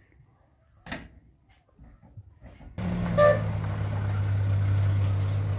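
A quiet stretch with a single sharp click about a second in, then a steady low motor hum that starts abruptly about halfway through, with a brief squeak just after it begins.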